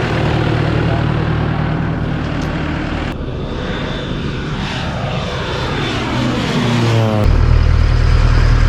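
Tractor engine running steadily while driving an irrigation water pump. About three seconds in the sound changes and a falling whine sweeps down over a few seconds. A couple of seconds before the end the steady low engine sound returns abruptly.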